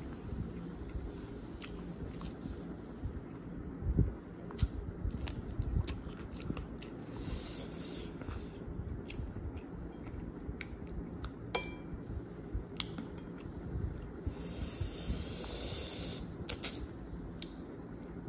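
Close-miked chewing of mouthfuls of rice and mutton curry, with wet mouth clicks and small smacks. Twice, a longer hissing sound comes through, a few seconds in and again near the end.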